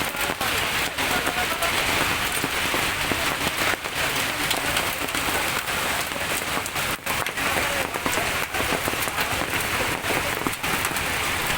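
Hailstorm: hailstones and rain pelting down onto hard surfaces, a dense steady patter with many sharper individual hits.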